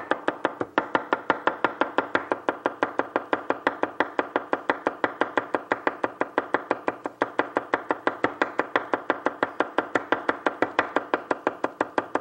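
A large knife rapidly chopping green onions on a wooden cutting board: a long, even run of quick knocks, several strokes a second, a little noisy.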